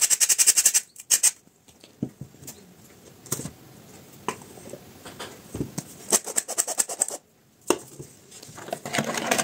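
Hand-held metal flour sifter being worked: short bursts of rapid clicking, about ten clicks a second, as flour is sifted into a bowl. Between the bursts come a few scattered light knocks and taps of kitchenware.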